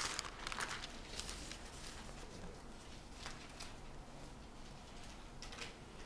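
Quiet room with faint rustling and a few light taps and clicks, as Bible pages are turned to a passage.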